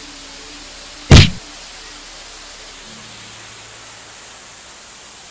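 A single loud, short thump about a second in, over a steady hiss.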